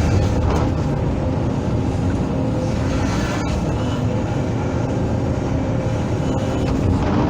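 Hydraulic excavator's diesel engine running steadily while working, with a steady low rumble and a faint hum above it.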